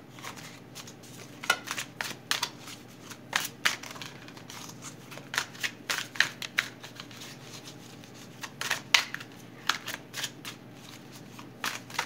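A deck of tarot cards being shuffled by hand: irregular flicks and snaps of cards sliding against each other, coming in short clusters with brief pauses between.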